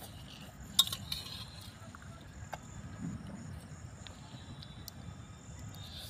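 A spoon clinking against a plate while someone eats noodles: one sharp clink about a second in, then a few faint taps.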